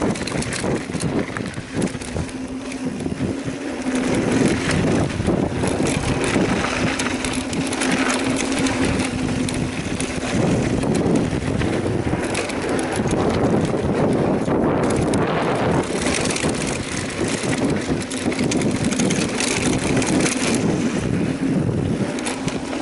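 Mountain bike riding down a dirt trail: tyres rolling and crunching over gravel and rock, with wind on the microphone. A steady hum comes and goes several times.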